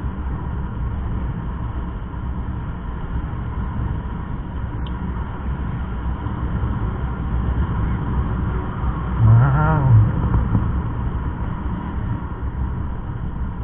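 Steady low rumble of a motorcycle ride, with wind and road noise. About nine seconds in there is one brief, low, voice-like sound whose pitch rises and falls.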